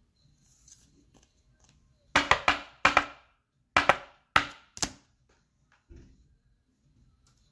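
A run of seven sharp knocks on a hard surface, three quick ones, then single knocks spaced about half a second to a second apart, each ringing briefly.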